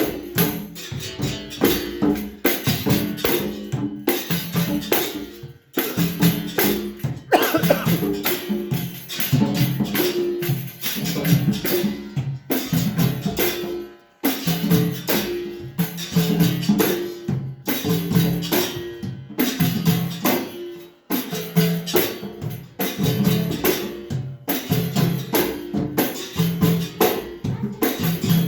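Capoeira roda music: berimbau with pandeiro and drum playing a steady, driving rhythm. The sound dips out briefly three times.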